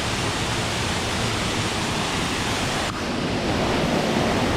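Waterfall rushing: a loud, steady roar of falling water, with a brief dip about three seconds in.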